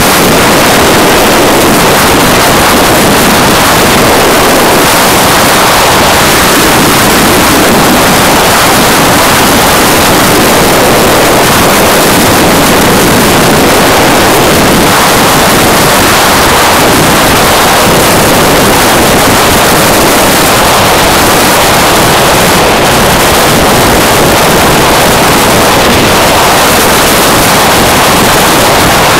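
Loud, steady wind rush buffeting the microphone of a motorcycle riding at highway speed, mixed with road noise.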